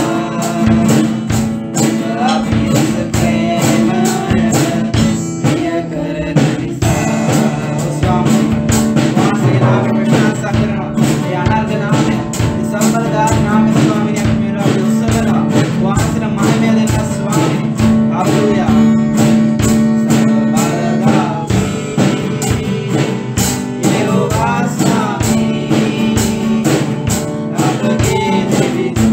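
A man and a woman singing a Sinhala worship song together, accompanied by strummed acoustic guitar.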